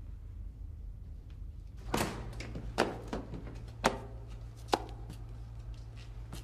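Four sharp knocks about a second apart, ringing briefly in a small room, over a steady low hum that comes in about two seconds in.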